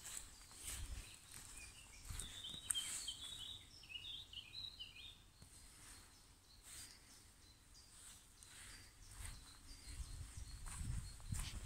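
Footsteps walking along a woodland path, while a small songbird sings a quick run of high chirping notes about two seconds in, lasting a few seconds.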